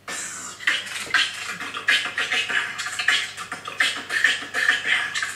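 Human beatboxing: a fast, dense run of mouth-made percussive pops, clicks and hisses that starts suddenly.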